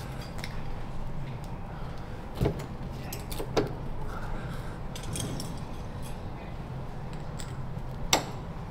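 Metal P-clips clinking and clicking as they are fitted around an armoured cable: a few sharp metallic clicks, the loudest near the end, over a steady low background hum.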